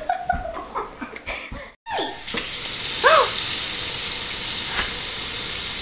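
A girl laughing and clapping for the first couple of seconds. After a sudden break, a steady hiss of running water, with one short vocal sound about three seconds in.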